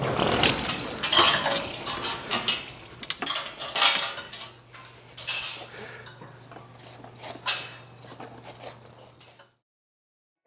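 Sectional garage door being raised, its panels and rollers clattering and clanking in a run of sharp metallic knocks, busiest in the first few seconds. A low steady hum sets in about halfway, and everything cuts off about a second before the end.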